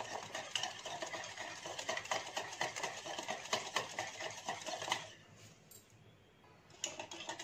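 A wire balloon whisk beats oil and powdered sugar in a bowl, with rapid scraping and clicking of the wires against the bowl, the sugar being dissolved into the oil. The whisking stops about five seconds in, and a few more clicks come near the end.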